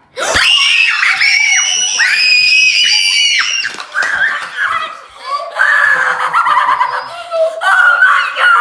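High-pitched excited screaming for about three and a half seconds at a reveal, then shrieks and laughter.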